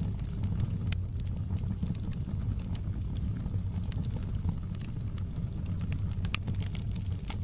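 Wood fire crackling in a fireplace: a steady low rumble of flames with scattered sharp pops and snaps, a louder pop about a second in and a few more near the end.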